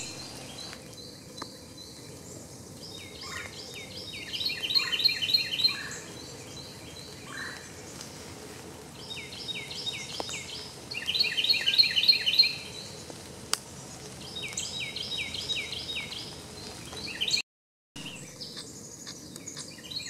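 A songbird sings three phrases of quick, repeated high notes, each about two to three seconds long, over a steady outdoor background, with one sharp click in between.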